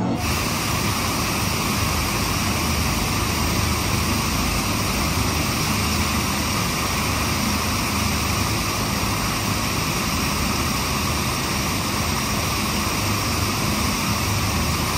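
Artificial waterfall pouring steadily onto a passing yellow ride submarine and into the lagoon: an unbroken rushing and splashing of water.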